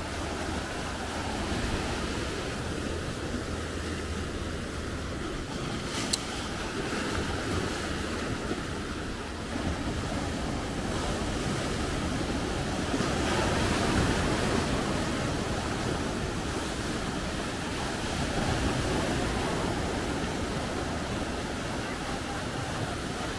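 Sea surf breaking and washing in over rocks at the shoreline, a steady rush of water that swells louder about midway through and again a little later.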